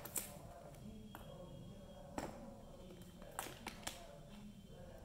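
Sharp plastic clicks and taps as kittens bat the balls around an orange plastic three-tier Tower of Tracks toy, a handful of irregular knocks with the loudest about two seconds in.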